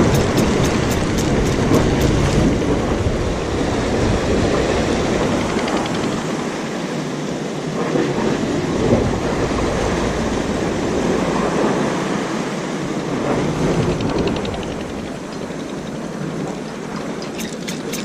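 Wind buffeting the microphone over waves washing against a concrete breakwater. A fishing reel is cranked with fast, even clicking during the first couple of seconds and again near the end, as a jig is retrieved.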